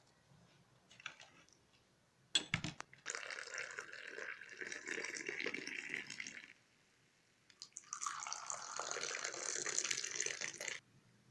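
Moroccan mint tea poured from a teapot into a glass, twice, each pour running about three seconds, with a sharp click just before the first.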